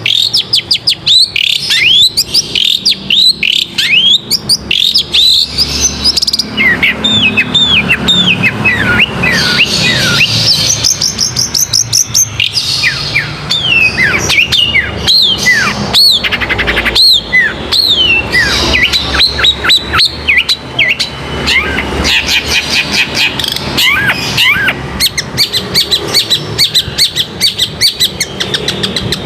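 Long-tailed shrike (cendet) singing a rapid, varied song without pause: quick down-slurred whistles mixed with fast chattering trills.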